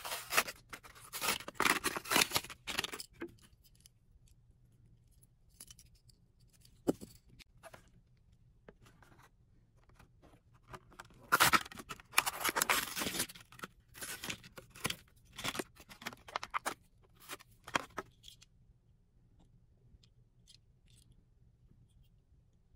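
Hot Wheels blister-card packaging being cut and torn open, with quick rasping strokes of cutting, scraping and tearing. The sounds come in two spells: one in the first three seconds, and a longer one from about eleven to eighteen seconds in.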